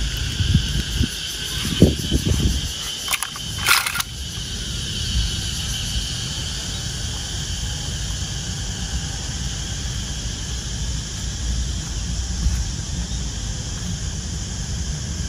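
Outdoor background noise with a steady low rumble and a faint high hum. A few soft knocks come in the first two seconds, then two sharp clicks around three to four seconds in.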